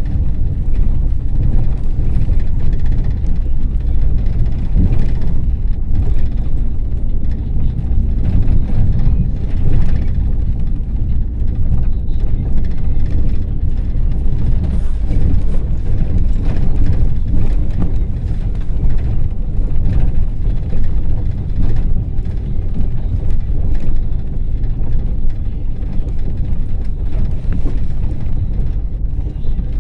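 Ford Transit minibus on the move, heard from inside the passenger cabin: a steady low rumble of engine and road noise.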